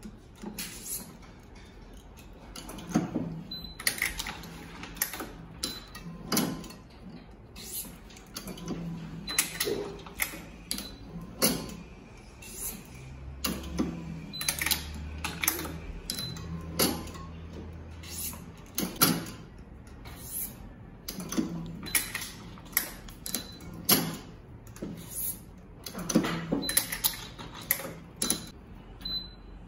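Badminton racket being strung on a stringing machine: irregular clicks and knocks of clamps, the tensioner and string being pulled through and snapped across the frame, with a short high beep a few times.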